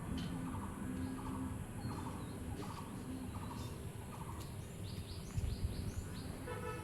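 Birds calling: one call repeats about every half second, then a quick run of short, higher chirps comes about two-thirds of the way in.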